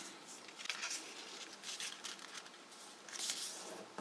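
Paper being folded and creased by hand, the corners of a square sheet brought in to the centre: soft, faint rustling of paper, a little louder near the end.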